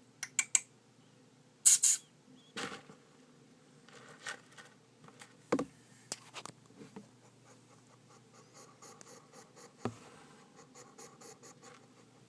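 Hedgehog snoring and snuffling: irregular sharp clicks and short scratchy puffs, loudest in the first two seconds, then a run of faint quick ticks near the end.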